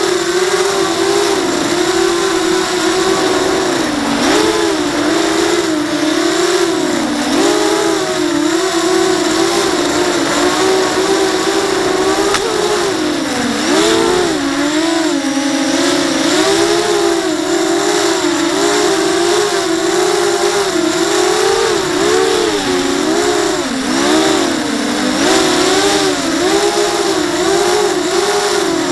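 Racing quadcopter's DYS BE1806-2300KV brushless motors spinning KingKong 5040 bullnose props, heard from the onboard camera: a steady whine that swoops up and down in pitch every second or two as the throttle changes, over a steady hiss.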